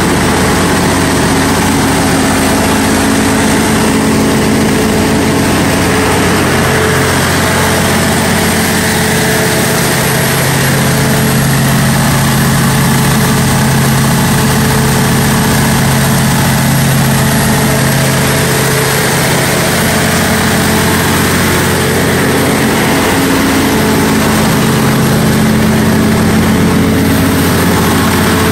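Cummins NTA-855-G2 turbocharged inline-six diesel of a 300 kW generator set running steadily at its governed 1800 rpm while carrying a load of about 385 amps on the output cables.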